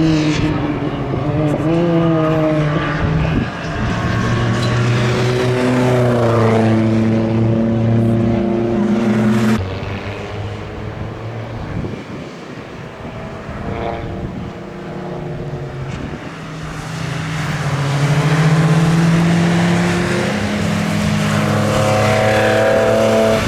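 Tuned BMW E46 M3's S54 straight-six engine, with its intake sound prominent, pulling hard under full throttle. The pitch climbs and steps down at each upshift. About ten seconds in it lifts off and runs quieter for several seconds, then climbs through the revs again.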